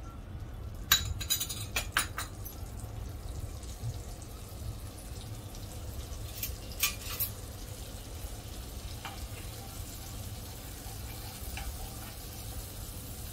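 Butter with pav bhaji masala sizzling gently in a frying pan, with a steady low hum under it. A spoon clinks against the pan and bowl a few times about a second in and again around six to seven seconds, then stirs the spiced butter near the end.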